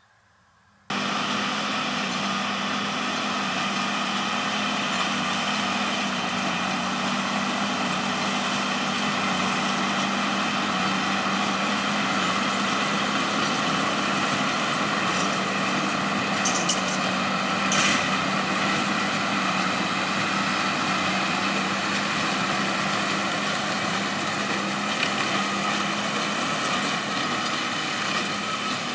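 Tractor engine and New Holland large square baler running together in a steady mechanical drone with a thin high whine over it, while the baler compresses straw and pushes a bale out onto its rear chute. The sound cuts in about a second in, with a few short knocks a little past the middle.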